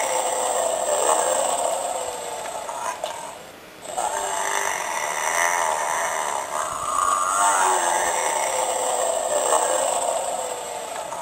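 Totoro plush doll's built-in snoring sound: long, noisy snore breaths that repeat in a loop, with a short pause about three and a half seconds in.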